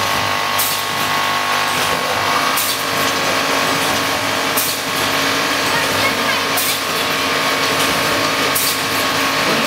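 HMK1600 spouted-pouch (doy pack) packaging machine running: a steady mechanical hum with a short burst of air hiss about every two seconds as its pneumatics vent on each cycle.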